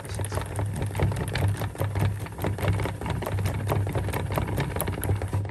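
Midwest Film Co. 400-foot bulk film loader being hand-cranked, its winding mechanism clicking rapidly and evenly as 35mm film is wound into a metal reloadable cartridge.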